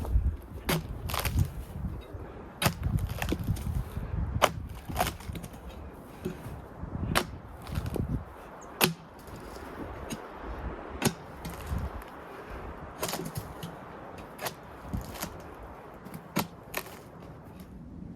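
Bark being stripped off a log by hand: irregular sharp wooden knocks and cracks, about one or two a second.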